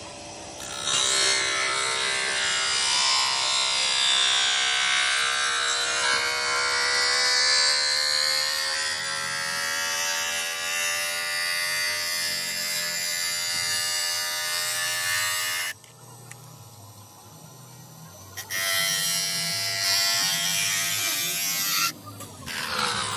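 Bench motor spinning a thin cutting disc through red acrylic tail-light lens sheet: a loud buzzing whine with gritty cutting noise, its pitch creeping slowly upward. The cutting eases off about two-thirds of the way through, resumes a few seconds later, and drops away near the end.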